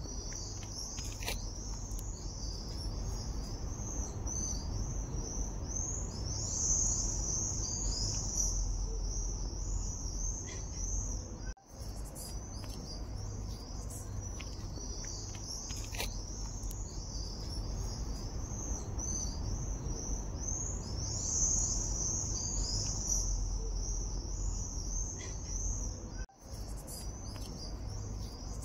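Steady high, shrill chorus of insects chirring, over a low rumble. The whole sound drops out for an instant twice.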